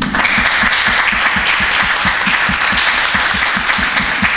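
Audience applauding, beginning all at once, with one pair of hands clapping close by at about five claps a second.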